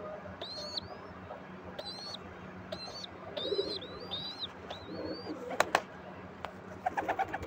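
Pigeon squabs' high-pitched begging squeaks, about six short calls in the first five seconds, the cheeping that draws the parent to feed them. Two sharp clicks come near six seconds, and a quick run of flapping wings starts near the end.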